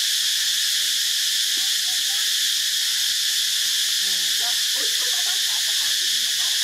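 Steady high-pitched drone of forest insects, unchanging throughout, with faint wavering calls underneath about four seconds in.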